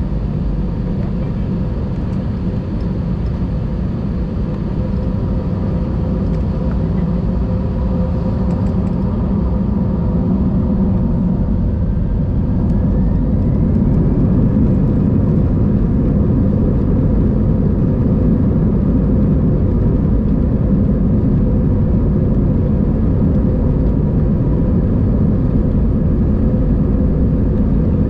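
Airbus A320 engines and cabin noise heard from a window seat while the jet taxis onto the runway: a steady rumble and hum that grows louder about halfway through, with a faint rising whine as it does.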